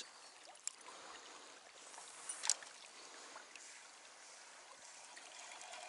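Faint, steady rippling of a shallow river current, with a light click under a second in and a sharper, louder click about two and a half seconds in.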